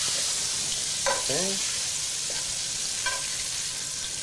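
Diced venison browning in hot oil in a frying pan, sizzling steadily as a spoon stirs it, with a light tap of the utensil about three seconds in.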